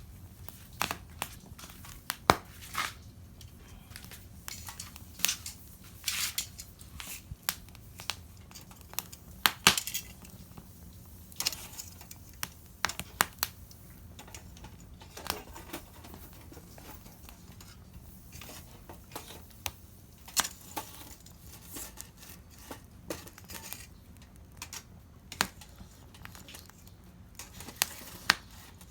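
Irregular sharp clicks, crackles and small knocks, scattered unevenly, a few much louder than the rest.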